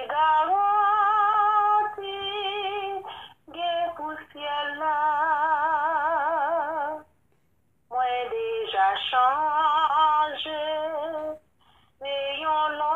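A singing voice carries a slow melody, holding long notes with vibrato. It comes in phrases broken by brief pauses, about three and a half, seven and eleven and a half seconds in.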